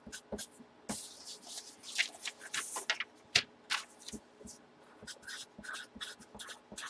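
Irregular short scratching strokes and light clicks from hands working at a table, much like pen writing and small items being handled.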